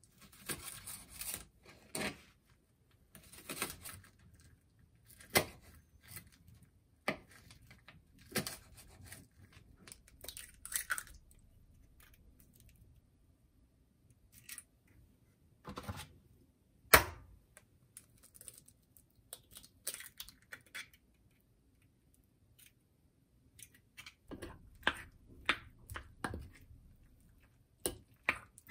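A kitchen knife chopping green onion on a plastic cutting board in irregular strokes, then a sharp knock about halfway through. Near the end a wooden spoon clicks and scrapes against a ceramic bowl while stirring rice and raw egg.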